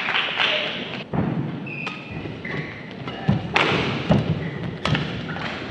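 Badminton rally: a few sharp racket hits on the shuttlecock, with players' feet thudding on the court.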